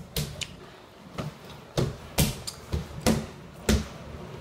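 Bare hands, feet and body slapping and thumping on a hard floor as a person flails and spins on it: a string of about eight sharp, separate hits, the loudest ones coming in the second half.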